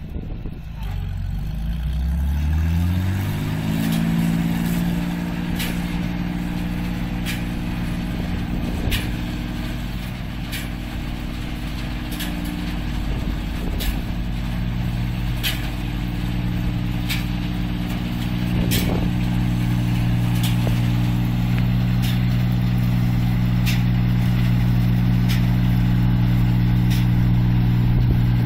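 8060 combine harvester's diesel engine revving up over the first few seconds, then running steadily at working speed, a little louder near the end. Sharp high ticks recur every second or two.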